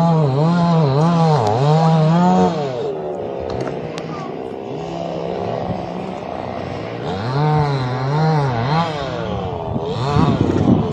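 Chainsaw cutting into a tree, its engine pitch rising and falling over and over with the throttle. About two and a half seconds in it drops to a lower, quieter run, then revs up and down again before a rougher stretch near the end.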